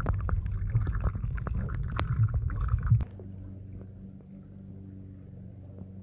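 Muffled water sloshing and gurgling heard from under the surface as a Dalmatian puppy paddles, with many small splashy clicks; it cuts off abruptly about three seconds in, leaving a quieter steady low hum.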